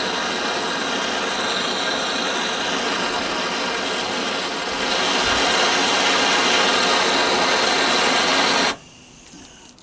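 Gas blowlamp burning with a steady hiss. It gets louder about halfway through, then cuts off suddenly near the end.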